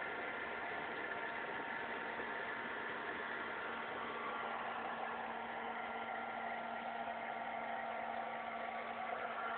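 Homemade jet engine built from a juice can running steadily: a continuous rushing noise with a low hum that grows stronger about four seconds in.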